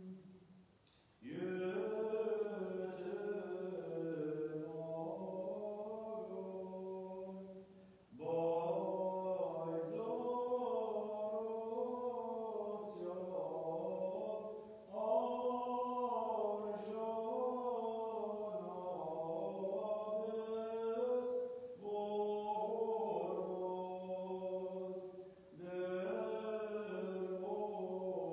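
Armenian liturgical chant: a slow melody sung in long phrases, with brief pauses between them.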